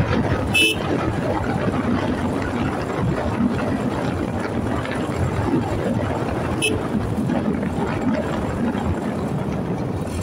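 Steady vehicle noise, as of a vehicle on the move, with two brief high-pitched chirps, one about half a second in and one near seven seconds.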